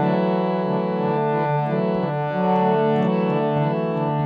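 Harmonium playing an instrumental passage between sung lines of kirtan: held notes that change in steps, with no voice.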